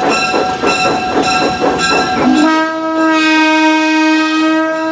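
A moving train's rhythmic beats, about four to five a second, then about halfway in the locomotive's whistle sounds one long steady note that carries on past the end.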